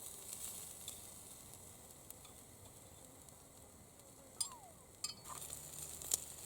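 Food sizzling faintly on a hot iron griddle over a small camp stove, with a few sharp clicks near the end.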